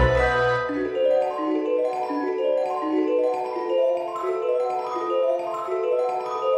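Background music: a steady run of short pitched notes in a quick melody, with a low bass note dying away about a second in.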